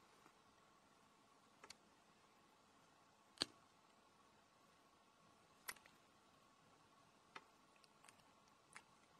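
Near silence broken by six short, sharp clicks at irregular intervals, the loudest about three and a half seconds in.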